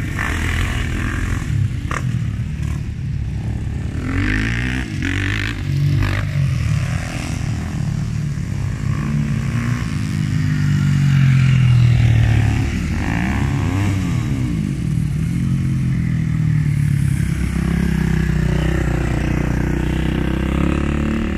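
Motocross dirt bikes riding the track, their engines revving up and down with the throttle, pitch rising and falling as they pass. Loudest as a bike comes close about halfway through, with a few sharp knocks in the first seconds.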